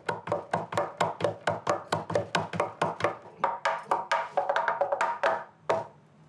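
Rows of hard candy being chopped with a blade, the strokes fast and even at about six a second, stopping shortly before the end.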